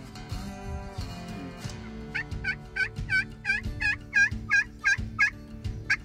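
Wild turkey yelping: a run of about eleven evenly spaced yelps, roughly three a second, starting about two seconds in.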